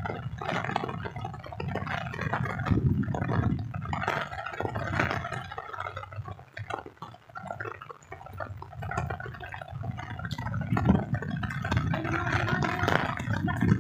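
Wind buffeting the microphone in uneven low rumbles, over the hiss of falling rain; it eases briefly about halfway through.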